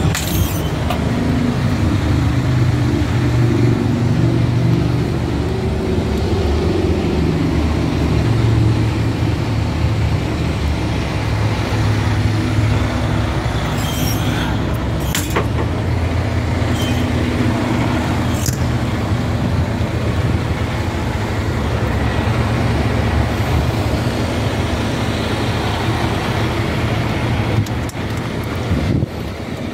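A 2021 Freightliner fire rescue truck's engine idling steadily, with a few light clicks and knocks about halfway through.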